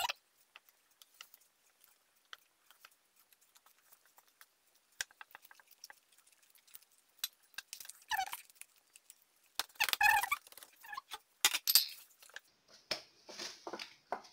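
Hands working oiled dough on a wooden tray, gathering the stretched sheet into a ball: scattered soft sticky clicks and smacks, with a few louder bursts of handling noise in the second half.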